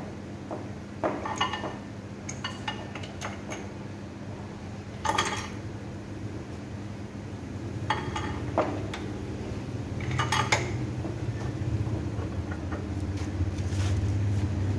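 Irregular metallic clinks and scrapes of a hand wrench working the bolts on an electric motor's steel coupling flange, the loudest about five and ten seconds in, over a steady low hum.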